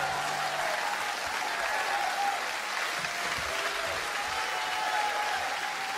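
Audience applauding and cheering, with voices calling out, just after the music stops.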